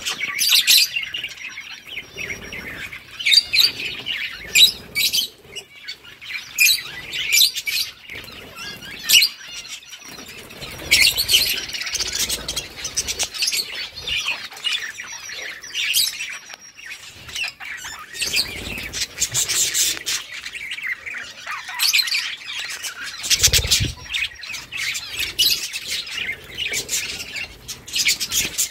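Budgerigars chirping in a steady stream of short, overlapping calls.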